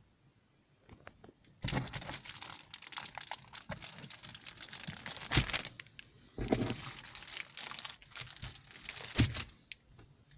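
Clear plastic protective film inside a new car's cabin crinkling and rustling as it is handled, in two long stretches with a short break about six seconds in.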